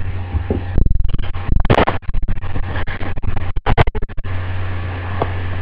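Loud scratching, rubbing and knocking of the camera's built-in microphone being handled and swung around, a dense run of clicks lasting about three seconds. A steady low hum is heard before and after it.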